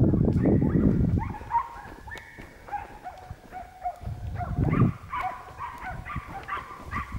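Podengo hunting dogs barking in short high yelps, quickly and over and over. Loud crunching footsteps through dry scrub come in the first second and again about four seconds in.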